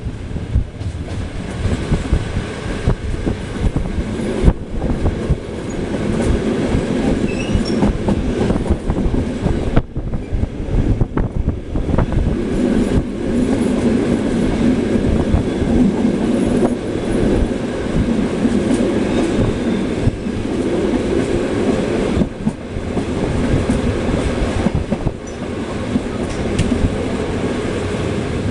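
Long locomotive-hauled passenger train rolling past at close range: a steady rumble with the wheels clattering over rail joints, and faint wheel squeal here and there.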